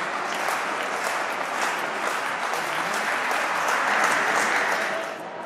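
Spectators applauding in an indoor arena with many quick claps, dying down about five seconds in.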